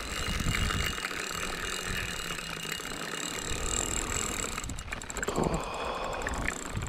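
Spinning fishing reel being cranked, its gears and pawl clicking steadily as a hooked fish is wound in.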